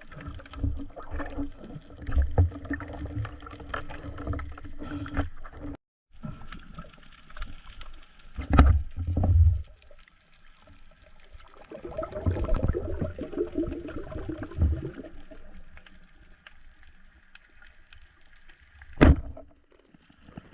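Water sloshing, splashing and gurgling close to the microphone, with a brief cut-out about six seconds in and one sharp knock near the end.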